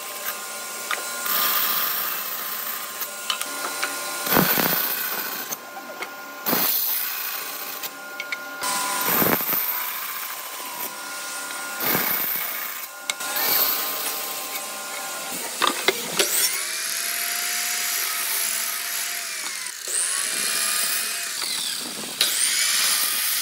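Bandsaw running and cutting through hardwood boards, the blade hum steady under the rasp of the cut. About two-thirds of the way in, a sliding miter saw takes over, spinning up and winding down three times for short crosscuts.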